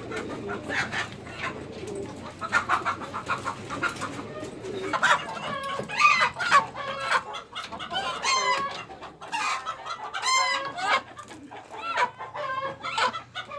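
Chickens clucking and squawking loudly in a coop, the calls getting busier about five seconds in as the birds squabble.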